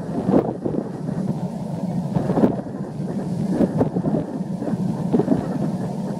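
Strong wind buffeting the microphone: an uneven, gusty rumble with frequent surges.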